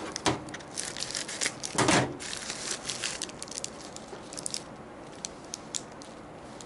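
Plastic packaging pouch being opened and handled: crinkling and tearing, with one louder rip about two seconds in, then only a few small crinkles and ticks.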